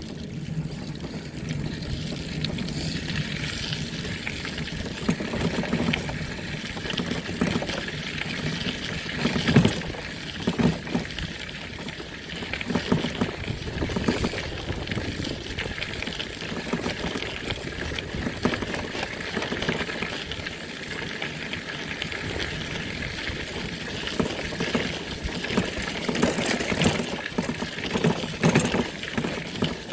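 A vehicle travelling over a rough road: a steady rumble of engine and tyres with irregular knocks and rattles throughout.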